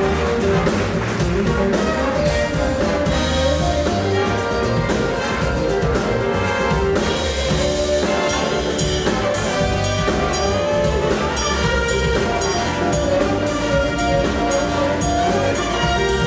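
A jazz band playing: brass horns carrying held and moving notes over a drum kit keeping a steady beat.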